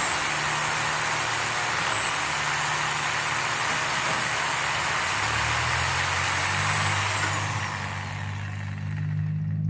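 Reciprocating saw cutting through half-inch PVC pipe at an angle: a steady, loud buzz of the blade through the plastic. Near the end the cut finishes and the motor winds down, its whine falling away.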